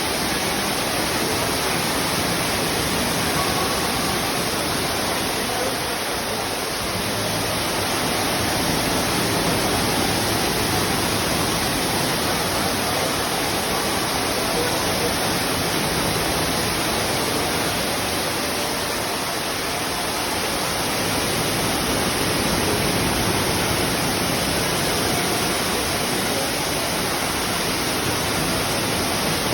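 Indoor waterfall: water falling in a steady, even rush.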